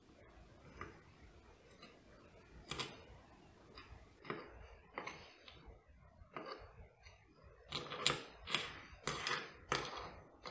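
Light metallic clicks and taps of steel tweezers picking up small screws and the lock's cam and setting them down in an aluminium parts tray, a few at first and then a quick string of them in the second half.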